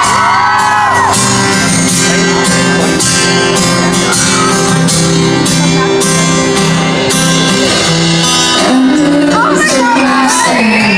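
Live band playing a song intro with repeated sustained chords over a steady drum beat, fans screaming at the start and again near the end.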